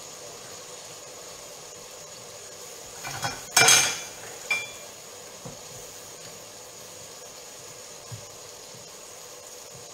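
Dishes and cutlery clattering on a kitchen counter while cooked skate is picked off the bone. A short burst of knocks comes about three and a half seconds in, then a single ringing clink about a second later, and a few soft knocks after that, over a steady faint hiss.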